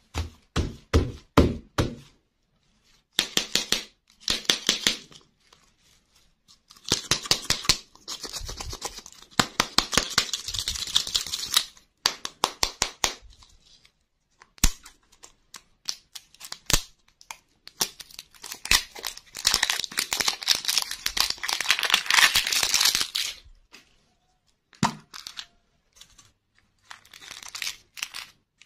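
Hands tapping on hard plastic lollipop balls, then the crinkly plastic wrapper of a Toybox toy lollipop being torn and peeled off in several long crackling bursts, with scattered clicks of the plastic shell being handled.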